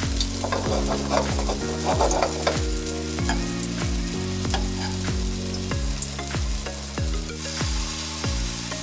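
Balls of urad dal batter frying in hot oil in a wok, a steady sizzle with fine crackles. Background music with a steady beat plays underneath.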